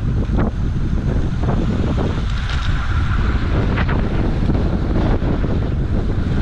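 Wind buffeting the microphone of a camera on a road bike descending at about 40 to 48 km/h, a loud, steady rush.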